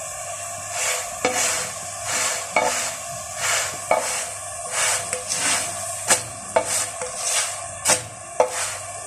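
Msemen (Moroccan layered flatbread) sizzling on a flat metal griddle, while a flat utensil presses and scrapes it against the pan in repeated quick strokes from about a second in, with a few sharp clicks of metal on metal.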